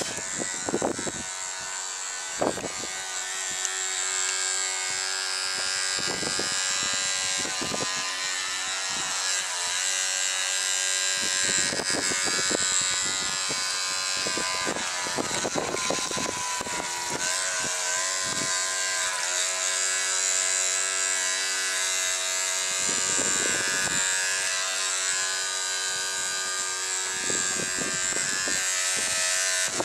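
Battery-powered oscillating electric toothbrush motor buzzing steadily as it drives a plastic paddle on a toy boat, with repeated gusts of wind on the microphone.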